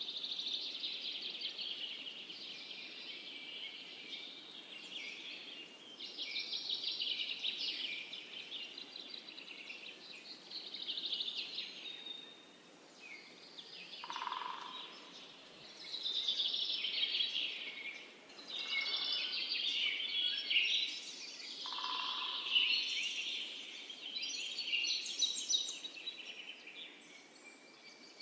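Several birds singing at once in a dawn-chorus-like mix of rapid overlapping chirps and trills, with a lower single call now and then.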